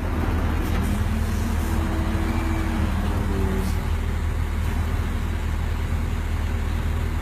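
Heavy diesel engine of recovery equipment running steadily: a constant low drone.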